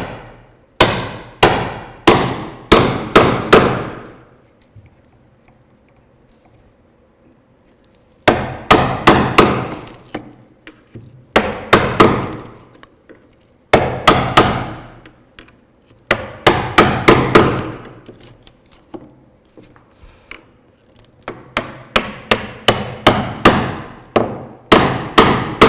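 Mortising chisel being struck repeatedly as it chops down into wood, in runs of sharp blows a few a second with a pause of about four seconds near the start.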